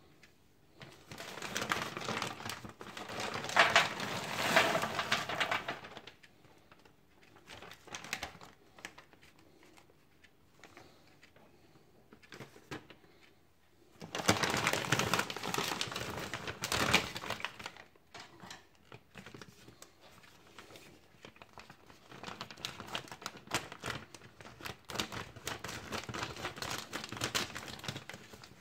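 Plastic bag of frozen French fries crinkling as it is handled, and the frozen fries clicking and rattling as they are poured out and spread onto a parchment-lined baking tray, in three bouts.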